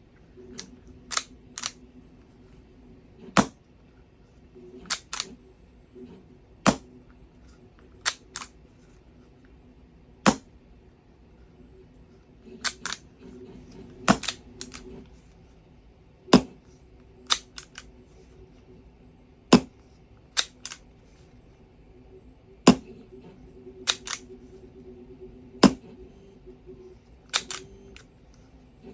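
Novritsch SSX10 HPA bolt-action airsoft rifle being shot and cycled over and over. A pair of close mechanical clicks from working the bolt alternates with a single louder crack of the shot, a cycle about every three seconds.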